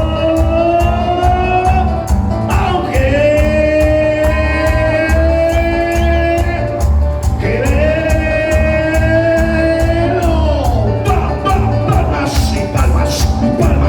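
Live band music: a singer holding three long notes over a steady drum beat and cymbal ticks.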